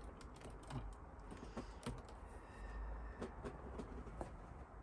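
Irregular light clicks and taps of small plastic model-kit parts and tools being handled and pressed into place on a scale model lorry.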